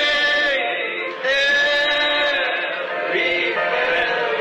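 Voices singing a slow gospel song in long held notes, with music behind them.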